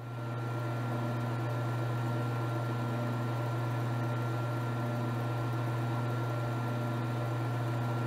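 Jet 1015 lathe running with its felt buffing wheels spinning: a steady low motor hum with a faint high whine.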